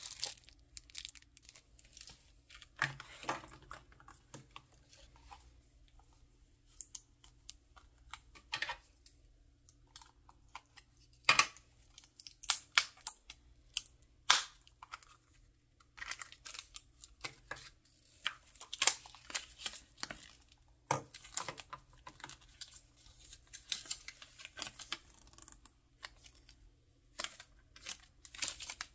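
Close-up handling of plastic gacha capsules: light clicks and taps, then a few loud sharp snaps about halfway through as a capsule is twisted and popped open. Later comes crinkling and rustling, ending with a folded paper insert sheet being unfolded.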